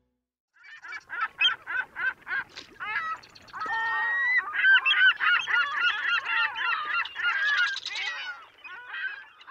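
A flock of birds calling. It starts about half a second in with a run of short repeated calls, then thickens into many overlapping calls from about four seconds in.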